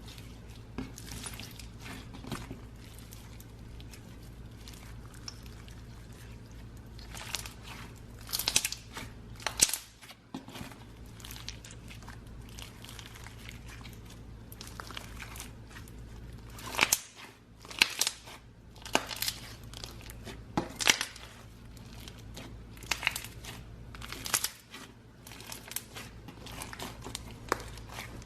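Dry crunching and crinkling as brittle material is crushed or cut by hand, in irregular bursts, with the loudest crunches at about 8 to 10 seconds in and again around 17 to 21 seconds in.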